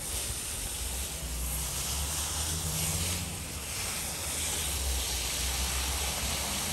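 Garden hose running, water jetting from the open hose end into loose soil with a steady hiss that starts and stops abruptly.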